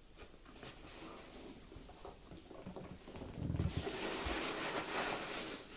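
Rustling and crinkling of packing material in a cardboard box, with light knocks of a clear plastic tub being handled. The rustle grows louder about three and a half seconds in and falls away near the end.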